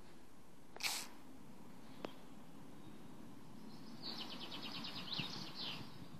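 A songbird trilling in the background, a rapid run of high notes lasting nearly two seconds from about four seconds in. A short sharp sound comes about a second in, over faint outdoor hiss.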